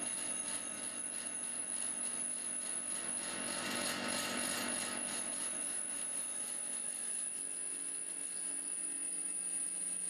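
Pillar drill running at its fastest belt speed while a 6 mm Artu masonry-style bit grinds into a hardened steel bearing race under firm pressure: a steady motor hum with rough, uneven scraping from the cut. The grinding eases off about halfway through.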